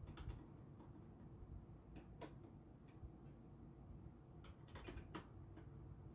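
Faint scattered clicks and taps, a few short ones spread over several seconds, over quiet room tone.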